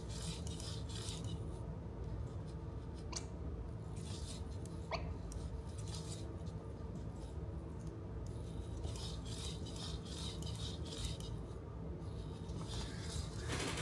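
Small servo motors of an EMO desktop robot whirring and ticking faintly as it turns in place, over a steady low hum. Two very brief high chirps sound about three and five seconds in.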